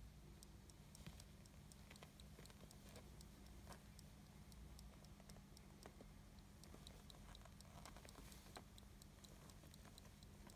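Faint, irregular wet clicking and smacking of three-day-old British Shorthair kittens suckling at their mother's teats.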